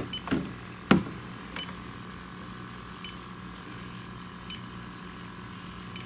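Handheld infrared refrigerant leak detector (Elitech ILD-300) sounding short high beeps about every second and a half, over a steady hum, while it is held near an AC line to sniff for a leak. Two knocks near the start and about a second in.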